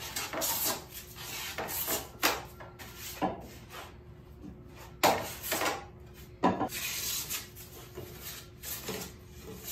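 Steel hand plane taking shavings off pine boards in a series of short, uneven push strokes with pauses between.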